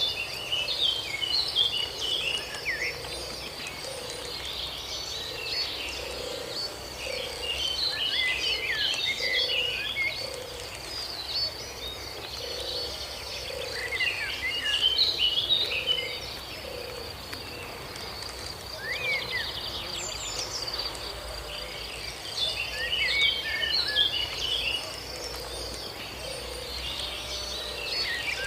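Outdoor nature ambience: birds chirping in short scattered bursts every few seconds over a steady high insect drone, with a low call repeating about once a second.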